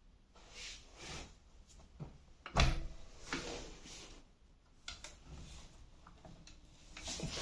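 Handling noises: irregular knocks, clunks and rustling, loudest in a single thump about two and a half seconds in.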